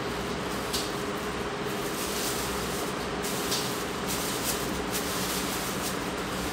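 Steady room noise: an even fan-like hiss with a low hum underneath, and a few faint ticks.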